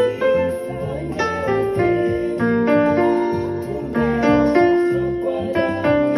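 Electronic keyboard played by hand: a melody of held notes, changing about every half second, in F-sharp, with low bass notes sounding underneath.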